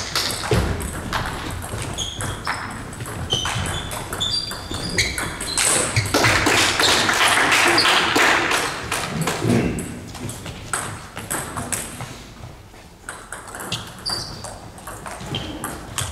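Table tennis balls clicking off bats and tables in a large echoing sports hall, with several matches going on, short high squeaks of shoes on the gym floor, and voices. There is a louder stretch of rushing noise for a few seconds in the middle.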